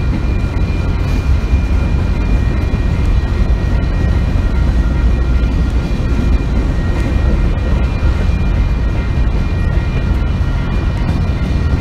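Freight train cars rolling past: a steady loud rumble of steel wheels on rail, with a faint steady high ringing over it.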